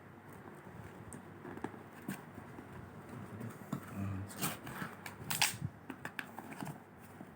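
Smartphone box and packaging being handled: scattered light clicks and taps, with a run of short rustling scrapes about four to five and a half seconds in.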